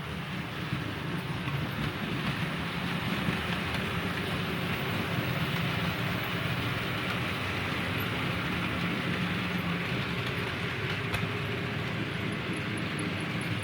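OO gauge model train running along the track: a steady hum and rumble of motor and wheels on rail, a little louder after the first couple of seconds.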